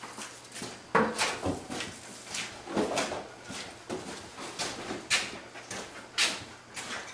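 Dog's paws knocking and scuffing on a wooden training table: irregular knocks, the loudest about a second in, others spaced a second or two apart.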